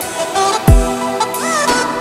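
Background electronic music: held synth notes, one deep bass hit about a third of the way in, and a short bending tone near the end.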